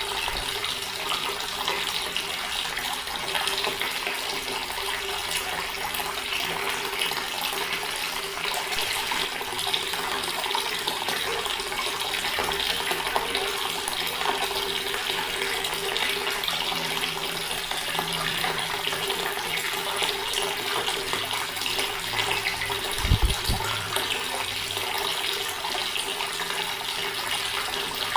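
Water running steadily from an open tap and splashing down. A brief low thump comes about two-thirds of the way through.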